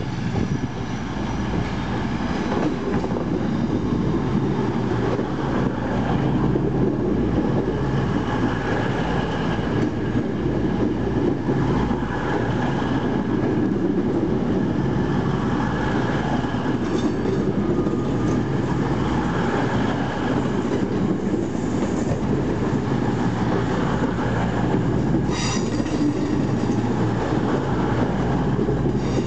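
Virgin Voyager diesel-electric multiple unit running into a station platform, its underfloor diesel engines giving a steady low hum. A few brief high-pitched brake or wheel squeals come in the second half as it slows.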